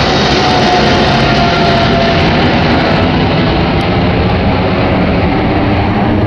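Boeing 777-300ER's twin GE90-115B jet engines at climb thrust: a loud, steady roar as the airliner climbs away overhead. In the first two seconds a faint whine falls slowly in pitch.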